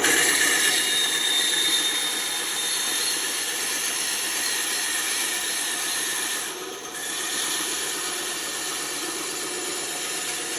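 Band saw running and cutting wood: a steady mechanical whine with hiss, dipping briefly about two-thirds of the way through.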